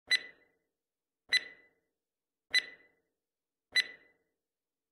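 Countdown timer sound effect ticking: four short ticks, each with a brief ring, about one every 1.2 seconds.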